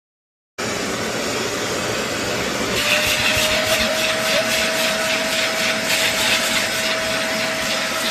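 BISSELL Little Green portable carpet and upholstery cleaner running, its suction motor cutting in abruptly about half a second in as a loud, steady whirring hiss. About two seconds later a steady whine joins and the hiss turns rougher and more fluttering.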